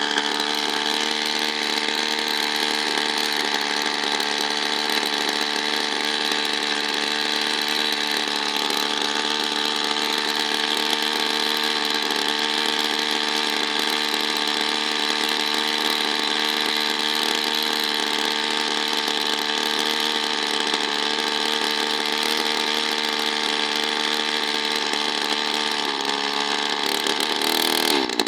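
Small two-stroke engine running at a steady speed, its pitch wavering briefly near the end.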